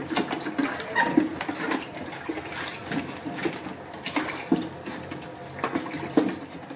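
Water sloshing and splashing irregularly as a hand scrubs the inside of a plastic RO water purifier storage tank.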